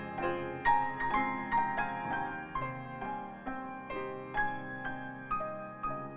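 Soft background piano music, slow single notes over held chords.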